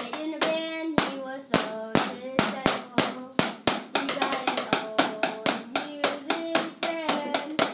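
Rapid, irregular tapping and slapping on a school desk with a stick and hands, several hits a second, while a child sings along in short held notes.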